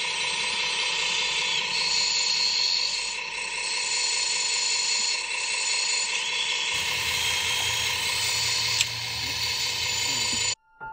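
Small electric gear motors of a homemade model excavator whining steadily as it drives on its tracks, with one sharp click near nine seconds in. The sound cuts off abruptly just before the end.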